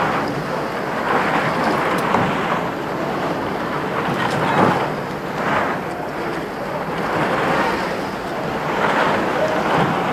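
Muffled rustling and rubbing of jacket fabric over a pocket-carried camera's microphone while walking, swelling every second or two with the stride.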